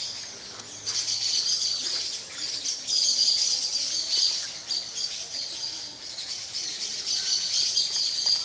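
Tropical forest ambience: a dense, high-pitched chorus of calling birds and insects that swells and fades every second or two, then cuts off suddenly near the end.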